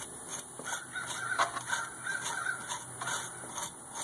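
Wire brush scrubbing old gasket material off a tractor thermostat housing flange, in quick repeated rasping strokes about three a second. A few short, higher-pitched squeaks come around the middle.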